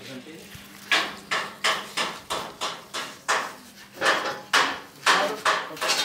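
Rhythmic hammer-like strikes on metal, about three a second with a short ring after each, starting about a second in.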